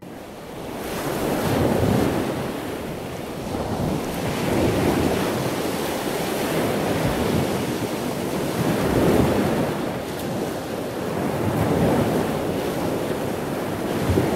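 Ocean surf: a steady rushing wash of waves that swells and falls back every few seconds.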